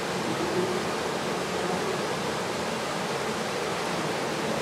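Steady, even rushing of running water with no distinct events.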